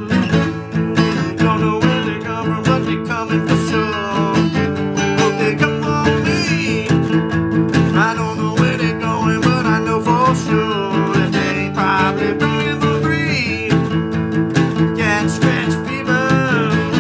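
Steel-string dreadnought acoustic guitar, capoed at the fifth fret, flatpicked with chords strummed in a steady rhythm.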